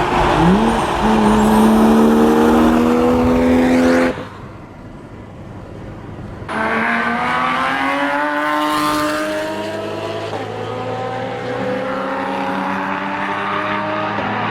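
Toyota Supra 2JZ straight-six accelerating hard, its pitch climbing through the revs. The sound drops away suddenly about four seconds in. It comes back loud a couple of seconds later, with the engine pulling steadily higher again.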